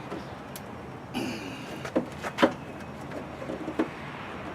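Hard plastic parts of a Jeep Wrangler JK fuel filler housing being worked loose by hand: a short scrape a little over a second in, then a few sharp clicks and knocks.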